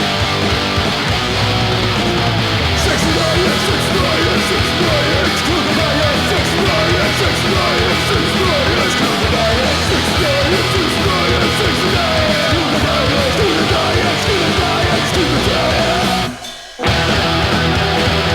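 Punk 'n' roll song played from a vinyl record: distorted electric guitars over bass and drums. About sixteen seconds in the band stops dead for about half a second, then crashes back in.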